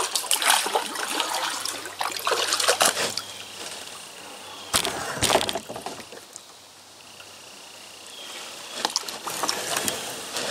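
Water splashing and trickling as a kayak paddle dips and drips, in irregular spells. There is a louder burst of noise about five seconds in, then a quieter stretch before the splashing picks up again near the end.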